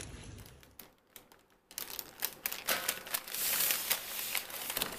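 A paper bag crinkling and rustling in irregular crackles as it is handled, starting after a brief quiet gap about a second and a half in. Before the gap a low rumble fades out.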